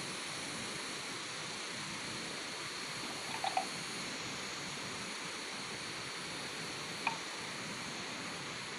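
Steady outdoor hiss, with two or three short, faint clacks about three and a half seconds in and one more near seven seconds, from two young water buffalo butting heads.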